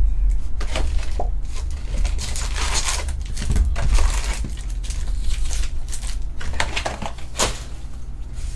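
Foil wrappers of 2021 Bowman Baseball card packs crinkling and rustling as they are lifted out of the cardboard hobby box and stacked, with irregular light knocks, over a low steady hum.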